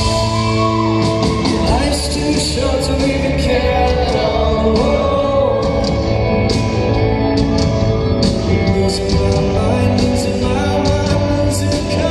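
A live pop-rock song: a man singing over a band with sustained chords and a steady drum beat with cymbal strikes.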